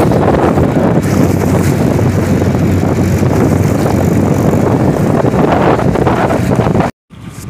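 Small motorboat underway at speed: the engine running steadily under heavy wind on the microphone and water splashing off the hull. It cuts off suddenly near the end.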